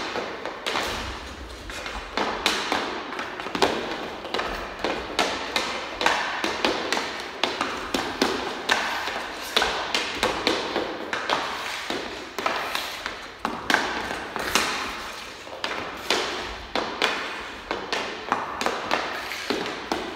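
Hockey stick blade tapping and knocking pucks on synthetic ice during fast stickhandling: sharp, irregular clacks several times a second, over the scrape of ice skate blades on the plastic surface.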